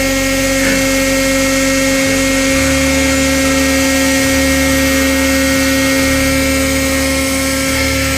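Hydraulic power unit running: its electric motor and hydraulic pump give a loud, steady whine.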